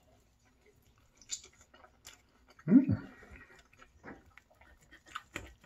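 A man chewing food, with scattered light clicks of a fork and knife on a plate. A little under three seconds in comes a short, loud, falling hum from his voice.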